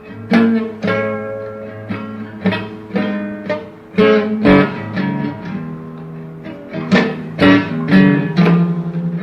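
Instrumental guitar passage in a blues song: a run of plucked notes and chords, each struck sharply and left to ring.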